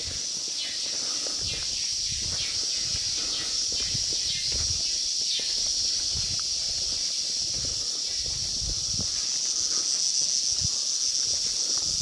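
Steady high-pitched drone of rainforest insects, with a run of short falling chirps in the first half. Footsteps thud on a dirt trail throughout.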